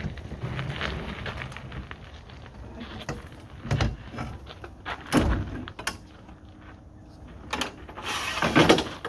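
A metal hand truck and a large home appliance being handled on gravel: shuffling and scraping, then several hard clunks spread through the middle, and a longer grating scrape near the end.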